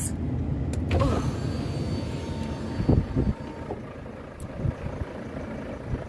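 Snowplough truck's engine running, heard from inside the cab as a steady low rumble. A faint thin whine lasts a couple of seconds, and a few knocks come about halfway through.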